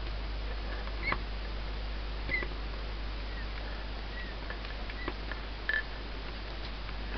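Plastic Lego Technic gears and parts of a model forging manipulator giving a few scattered clicks and short squeaks over a steady low hum.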